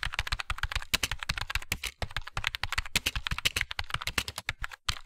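Computer keyboard typing sound effect: rapid key clicks in two runs with a short pause about two seconds in, then a couple of last keystrokes near the end.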